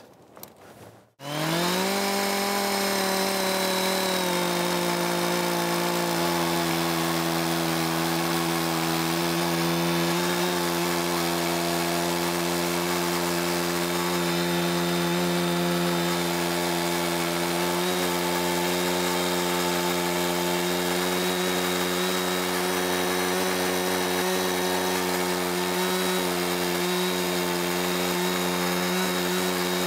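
Stihl 066 two-stroke chainsaw in a chainsaw mill, ripping lengthwise through a cedar log at full throttle under steady load. It starts about a second in and holds one steady engine note throughout.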